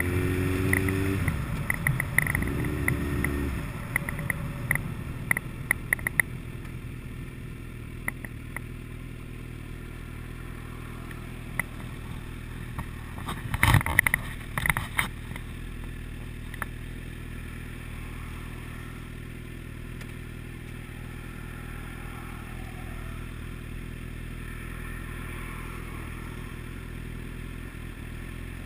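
A vehicle engine running steadily, with a higher whirr over the first few seconds, scattered clicks, and a burst of loud knocks and clatter about halfway through.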